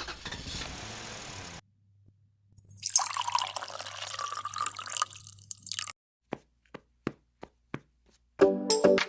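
Water from a miniature hand pump splashing out for about three seconds, then five separate drips.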